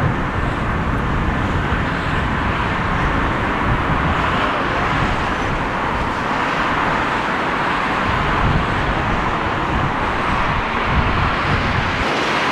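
Twin-engine Boeing 767 jet engines at takeoff power, a steady rushing noise with a low rumble as the airliner rolls and lifts off. The low rumble drops away near the end.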